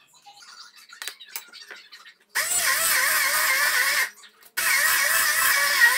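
Mallory stick blender grinding flaked coconut in its plastic beaker, run in two bursts of about a second and a half each, its whine wavering in pitch. A few light handling clicks and knocks come before the motor starts.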